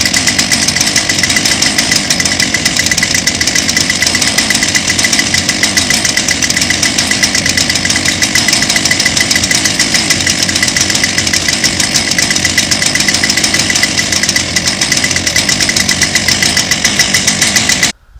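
Two-stroke chainsaw running steadily at high speed, then shut off abruptly just before the end.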